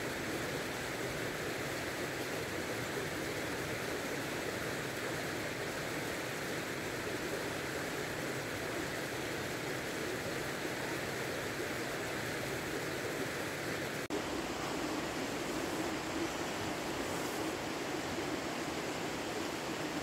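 Steady rushing of a river flowing nearby. About two-thirds of the way through it drops out for an instant and resumes with a slightly different tone.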